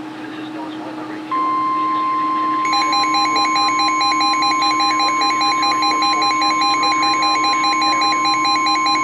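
NOAA Weather Radio warning alarm tone (1050 Hz), a steady single tone coming on about a second in, heard through a weather radio receiver's speaker. From under three seconds in, the receiver's own alert beeps pulse rapidly over it. Together they signal an incoming warning.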